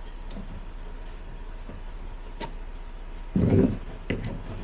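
Hand tools working on a plywood shipping crate: a screwdriver picking at the lid with small clicks, then a loud clunk about three and a half seconds in, followed by a couple of sharper clicks, over a steady low hum.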